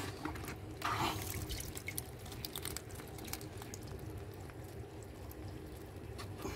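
Water splashing and dripping from a plastic mesh basket of live fish held over a tank. There is a louder splash about a second in, then scattered small drips and splashes.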